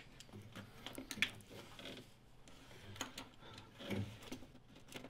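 Faint clicking of a ratchet turning a 12 mm socket on an extension to undo an inlet manifold bolt, with a few light metallic knocks.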